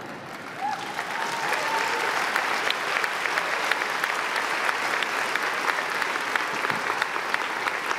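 A large audience applauding, swelling within the first second and holding steady, with a lone whoop rising over the clapping about half a second in.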